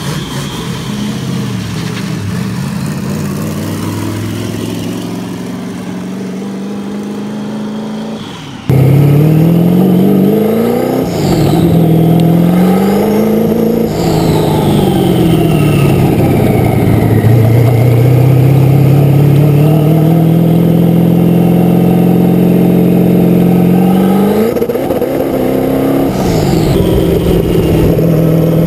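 Twin-turbo LQ9 6.0-litre V8 of a race car, quieter at low revs at first, then loud under hard acceleration. Its pitch climbs steeply twice, falls back, rises and holds high for several seconds before dropping. A faint high whistle rises and falls with the revs.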